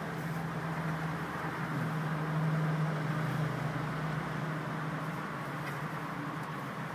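Steady in-cabin noise of a Honda Accord being driven: engine and road noise with a steady low hum.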